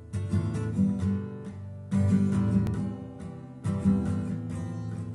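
Acoustic guitar strumming chords, with a fresh chord struck about every two seconds.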